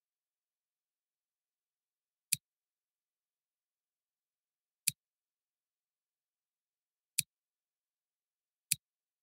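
Four single computer mouse clicks, sharp and brief, spaced about two to two and a half seconds apart, with dead silence between them.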